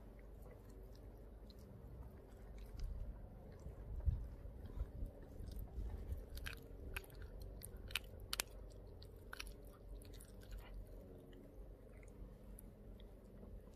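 A Pomeranian chewing and biting a raw duck foot, with sharp crunches of the small bones and cartilage, thickest in the middle.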